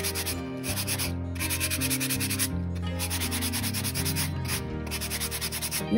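Soft sandpaper rubbed by hand over a wooden box lid painted with acrylic, lightly scuffing the paint and a decoupage picture. Quick back-and-forth strokes, with a few short breaks between runs.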